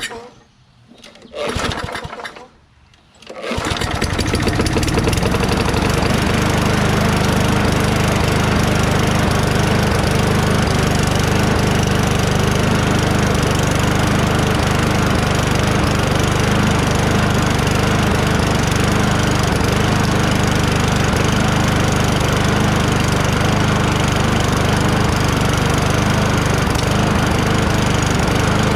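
Toro Recycler mower's 6.5 hp Tecumseh engine being pull-started after gas was added. A short burst about a second in, then it catches at about three and a half seconds and runs steadily at an even speed.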